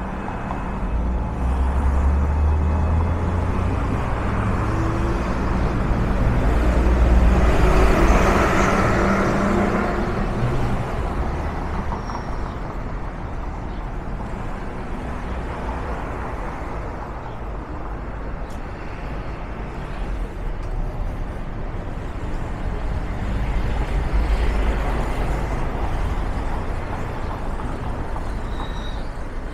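City street traffic: a steady low rumble of engines, with a vehicle passing close and loud about eight seconds in and another passing later.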